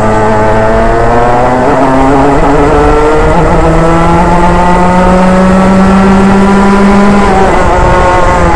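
Racing kart engine at full throttle, its pitch climbing steadily for about seven seconds as it accelerates, then dropping briefly as the throttle comes off before picking up again.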